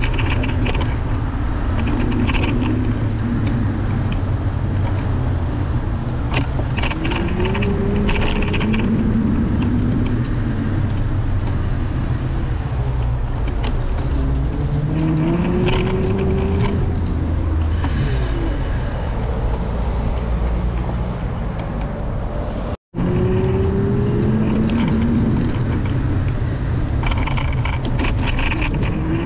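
Busy city street traffic: a steady low rumble with the engines of passing vehicles rising in pitch several times. The sound cuts out for a moment about three-quarters of the way through.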